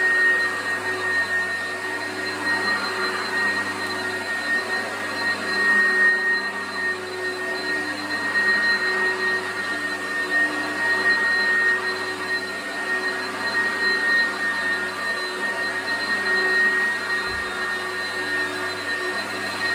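Oreck XL commercial upright vacuum cleaner running steadily on carpet, its motor giving a constant high whine over the rush of air, the level swelling and easing slightly as it is pushed back and forth.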